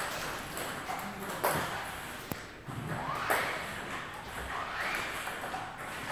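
Table tennis rally: a plastic ball clicking sharply off paddles and the table, a few hits spaced about a second apart.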